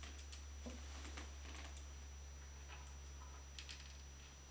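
Faint, scattered light clicks of small screws and washers being picked out of a plastic bag and handled, ready to fix the head onto a wooden spinning wheel.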